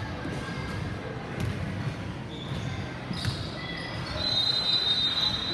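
Basketball game play on a gym court: a ball bouncing with repeated low thuds, and short high squeaks, one held for about a second near the end.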